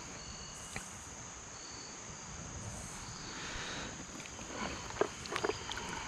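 Steady high-pitched chorus of crickets and other insects. About five seconds in, a few short splashes and sloshes of water as a hand and a released bass go into the shallow creek.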